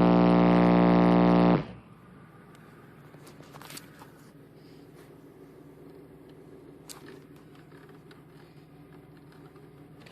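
Bass burp from two 12-inch Rampage subwoofers in a Honda CRX, driven by a JL Audio XD600/1 amplifier: a loud, steady, buzzing low tone that cuts off about a second and a half in. After it there is only a faint background hum with a few small clicks.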